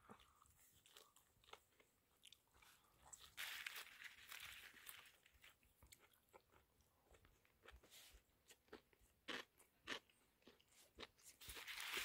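A person biting and quietly chewing a wrap of fresh chwinamul leaf around gimbap: faint scattered crunches and wet mouth clicks, with a soft hissing rush about three and a half seconds in.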